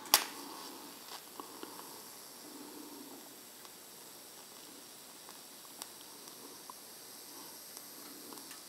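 DC TIG welding arc on mild steel at about 140 amps under argon, with filler rod fed into the puddle: a faint steady hiss with a thin high whine. A sharp click comes right at the start.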